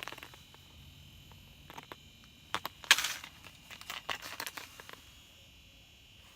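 Crinkling and rustling of plastic lure packaging being handled, in scattered short crackles, loudest about three seconds in.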